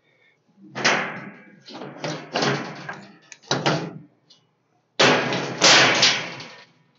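Heavy steel plate scraping and clanking on the steel slats of a CNC plasma table as it is handled, in several rough bursts of a second or so, the loudest near the end.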